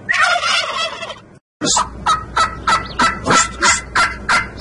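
Domestic turkey toms gobbling. A dense burst of overlapping gobbles comes first, the sound drops out briefly, then a run of short, evenly spaced gobbles follows, about three a second.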